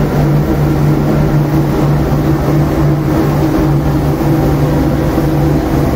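Industrial 120 kg drum coffee roaster running with its cooling-tray agitator and fans: a loud, steady mechanical hum with a low drone that wavers evenly throughout.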